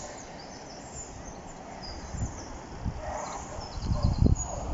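Small birds chirping in short high notes, with wind buffeting the microphone in low gusts that get stronger about three to four seconds in.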